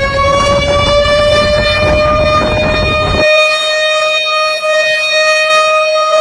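A long, high tone with overtones, slowly rising in pitch and then holding steady, over a loud rushing noise that cuts off abruptly about three seconds in.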